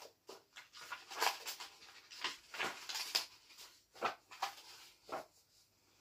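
Paper pages of a spiral-bound printed journal being turned by hand: a run of short, irregular papery swishes and rustles that die away near the end.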